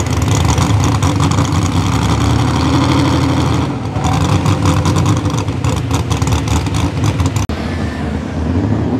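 Competition pulling vehicle's engine running loud at full power during a pull, with a brief sudden drop about seven and a half seconds in.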